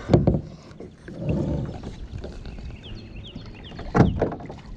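Hollow knocks on a plastic kayak hull, one just after the start and a louder one about four seconds in, with a faint wash of water and wind between them.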